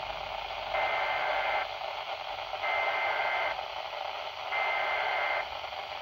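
Midland weather radio's speaker playing three SAME alert header bursts, each about a second of rapid digital data tones with a second's gap between them, over steady radio hiss. These encoded bursts announce an incoming weather warning and trip the radio's alert.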